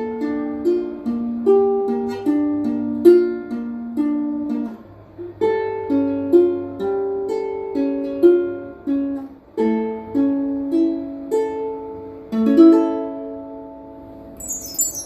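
Ukulele playing a gentle instrumental melody, plucked notes and chords ringing over one another; the playing fades away near the end, and a bright chime shimmer starts just as it closes.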